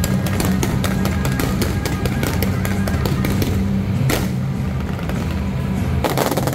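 Fireworks crackling and popping in rapid succession over loud music with a steady low beat. A louder burst comes about four seconds in and another near the end.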